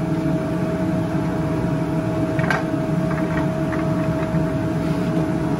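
Steady drone of a commercial kitchen with its gas range burning, carrying a constant whining tone. A brief knock comes about halfway through.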